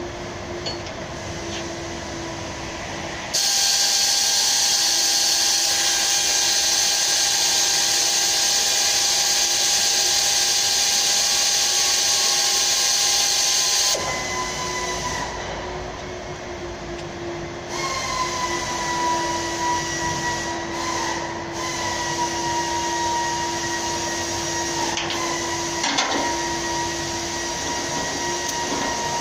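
A power tool runs with a loud, hissing whir for about ten seconds, switching on abruptly a few seconds in and cutting off suddenly. Under it, a steady machine hum with a faint high whine goes on throughout.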